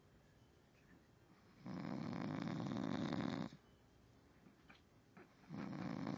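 Snoring: two long snores about four seconds apart, the second starting near the end, with quiet between them.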